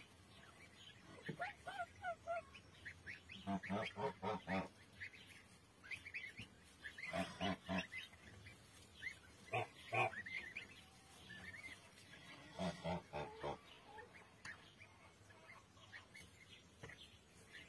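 A domestic goose giving about four short bursts of rapid, repeated low calls while her goslings peep continually in high, thin chirps.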